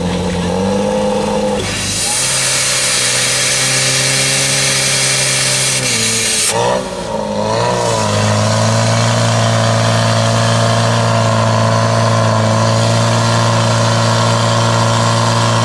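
Portable fire pump engine running hard at high revs, its pitch stepping up soon after the start and holding steady later on. A loud hiss covers the first part and cuts off suddenly.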